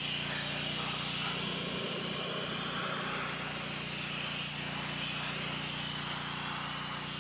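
Pressure washer running steadily, its jet hissing and spraying against the underside of a lawn mower deck, over the constant hum of the washer's pump motor.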